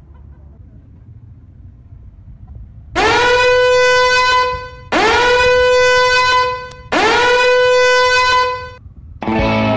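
Three long, loud horn blasts, each about two seconds, each sliding quickly up into a steady, buzzy note. They begin about three seconds in, after faint background noise.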